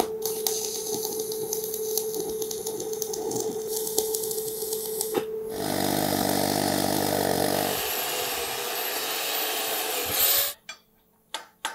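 Stick welding arc crackling steadily as a 55% nickel rod is run on cast iron, for about five and a half seconds. Then the weld is scrubbed with a wire brush, and a spinning wire cup brush on a power tool whirs on it until it stops about ten and a half seconds in.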